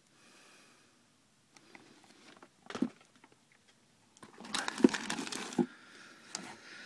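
Paper and cardboard packaging rustling and crinkling as items are handled and lifted out of a cardboard box, with a few light knocks. The crinkling is busiest a little past the middle, after a mostly quiet start.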